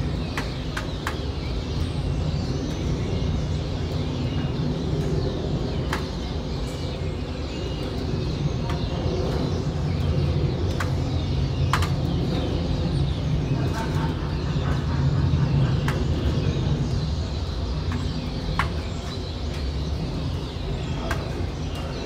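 Evening city ambience: a flock of starlings chattering in a dense, continuous twitter over a steady low rumble of traffic, with a few sharp clicks scattered through.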